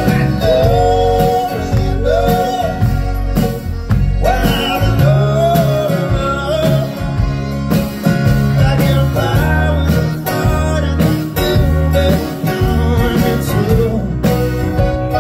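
Live band playing mid-song, with no lyrics caught: a wavering, bending lead melody over bass, a steady drum beat and guitar.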